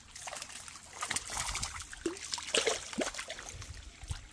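Shallow creek water splashing and trickling, irregular and uneven, as a hooked fish is fought in the water.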